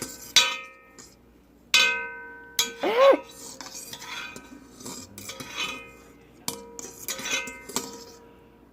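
Cutlery clinking against a dish several times, each knock leaving a short ringing tone. A brief rising-and-falling tone comes about three seconds in.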